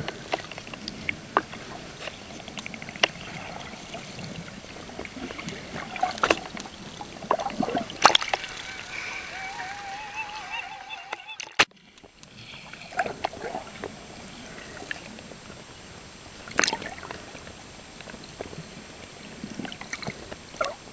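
Muffled water noise picked up by a camera in an underwater housing, with scattered sharp clicks and knocks and sloshing. A short wavering tone lasts about two seconds a little before the middle, and the sound drops away almost to nothing for a moment just after it.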